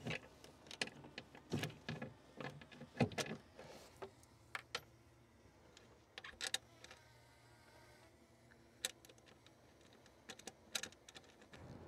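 Irregular light clicks and knocks of hand tools and hardware being handled while someone works on bolts and wiring in an equipment bay, with a few quick runs of clicks about six and a half seconds in and again near the end.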